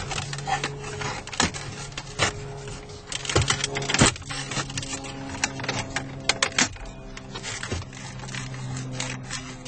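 Irregular plastic clicks and knocks from dashboard trim being handled by hand, with the sharpest two about three and a half and four seconds in, over a steady low hum.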